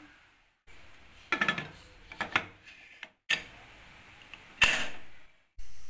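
Metal clanks and clicks from an aluminium pressure cooker as its lid is closed and the whistle weight is fitted onto the vent. There are a few separate knocks, with the sharpest click a little before the end.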